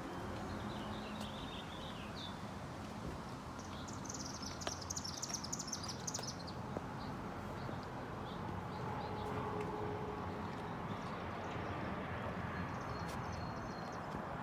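Birds chirping outdoors, a quick twittering run about four to six seconds in and a few brief calls near the end, over a steady low background rumble.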